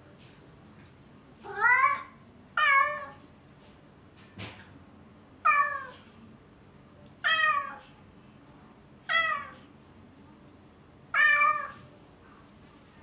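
A cat meowing six times, about every two seconds. These are lonely calls from a cat left alone, crying for its absent owners to come back.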